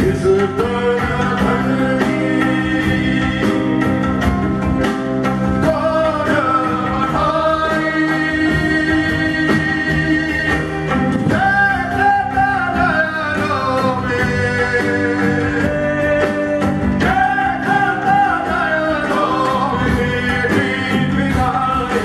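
Live fusion-rock band playing: a man sings a sliding, bending melody over bass guitar, guitar and percussion.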